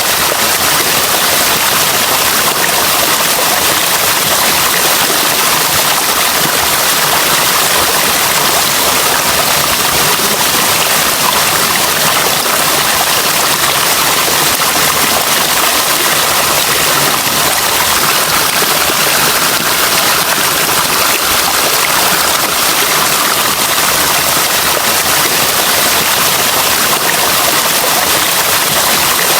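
Flowing water rushing steadily, a dense, even hiss with no change in strength.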